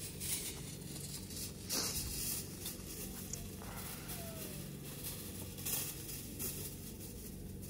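Chicken leg pieces and mutton chops sizzling on a charcoal kettle grill, with a couple of brief clicks of metal tongs turning the meat. A steady low hum runs underneath.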